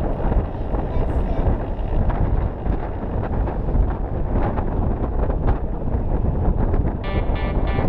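Wind buffeting the microphone of a camera mounted on the front of a moving velomobile, heard as a steady low rumble. A few steady pitched tones come in about seven seconds in.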